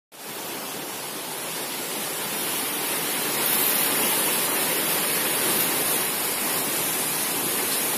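Steady rush of flowing water, swelling over the first few seconds and then holding even, with a high hiss on top.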